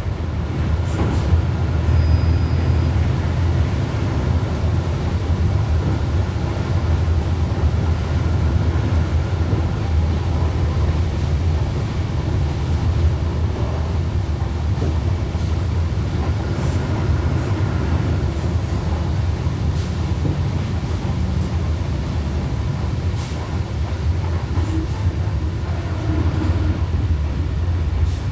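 Volkswagen Volksbus 17.230 OD bus under way at low engine revs: a steady low engine rumble, with a faint whine from the gearbox, which growls, and light rattling clicks.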